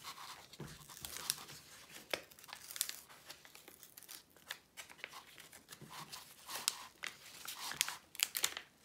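Protective plastic film being peeled back from the sticky adhesive surface of a diamond painting canvas, crackling and crinkling irregularly as it pulls away.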